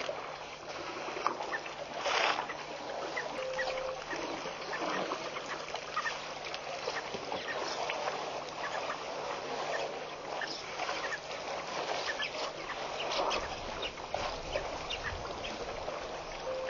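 Waterhole ambience: a busy mix of short bird calls and water splashing as African elephants drink, over a faint steady hum. A stretch of low noise comes in near the end.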